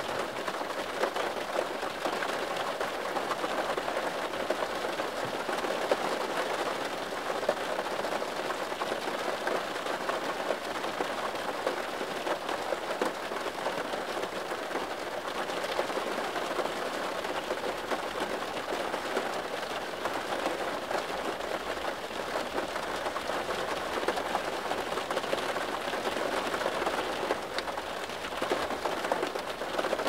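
Heavy rain falling steadily: a dense, even patter of drops that holds at the same level throughout.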